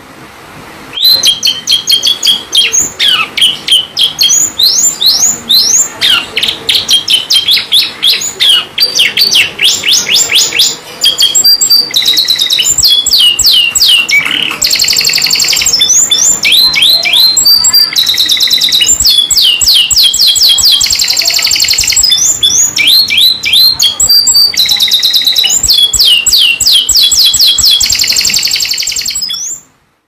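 Domestic canary singing a long, near-unbroken song of rapid rolling trills and runs of fast sweeping high notes. It starts about a second in and stops abruptly just before the end.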